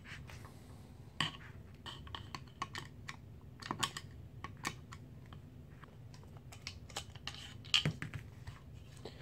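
Faint, irregular light clicks and taps of a screwdriver turning out the pistol-grip screw on an AR-15 lower receiver, with the rifle parts being handled.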